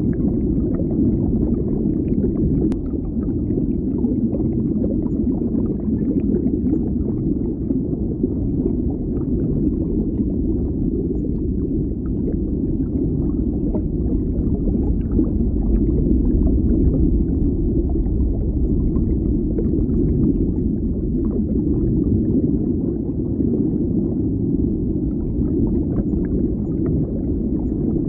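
Water bubbling steadily, heard as underwater sound: a dense, deep gurgling with many small pops scattered through it.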